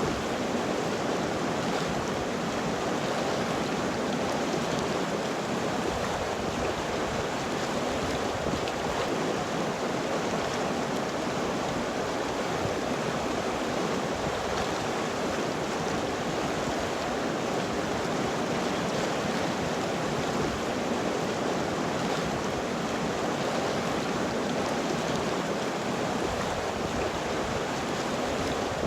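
River water flowing over rocks in a steady, even rush with no change.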